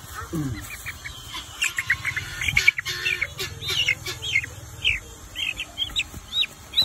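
A young barred chicken gives repeated short, high-pitched distress chirps while it is held and handled. The chirps come every half second or so, and more steadily in the second half.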